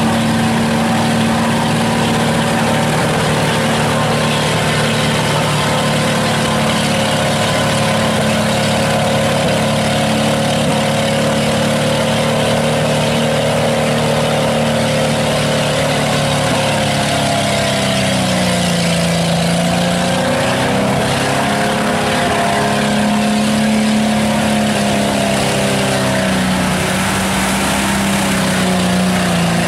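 Mud truck's engine running under load as the truck churns slowly through deep mud, holding a steady note. About two-thirds of the way through, the revs sag and then pick back up.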